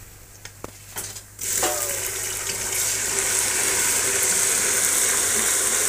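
Ginger, garlic and green chilli paste dropped into hot oil and browned onions in a pressure cooker: after a few light clicks, a sudden loud sizzle starts about a second and a half in and carries on steadily while it is stirred with a spoon.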